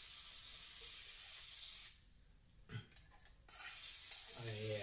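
WD-40 aerosol can spraying penetrating oil in two hissing bursts, the first about two seconds long at the start and the second beginning about three and a half seconds in, onto a part rusted too stuck to come off.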